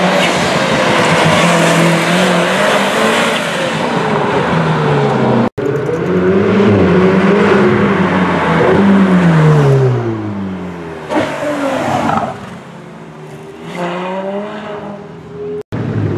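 Ferrari sports car engines revving hard and accelerating, the engine note climbing and dropping as the cars shift gears. About halfway through, a second car accelerates up and passes with a drop in pitch. The sound cuts off abruptly twice.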